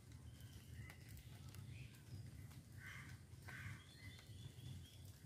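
Quiet outdoor ambience: a low steady rumble with a few faint bird chirps in the middle.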